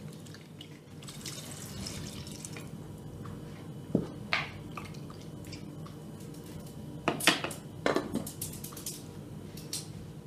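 Water poured from a mug into a pot of cubed raw meat, splashing and trickling for the first few seconds. This is followed by sharp clinks of a knife and the pot about four seconds in and again around seven to eight seconds.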